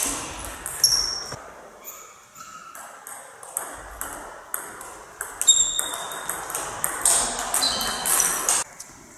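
Table tennis ball clicking sharply off bats and the table during rallies, each hit with a short high ring. The hits thin out in a lull about two seconds in and pick up again with the next rally. Near the end a louder burst of noise joins the hits, then stops suddenly.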